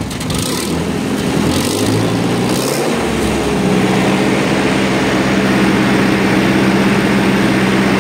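1954 Ferguson TO-30 tractor's Continental four-cylinder gasoline engine running. Its speed rises over the first three seconds, then holds steady at the higher speed.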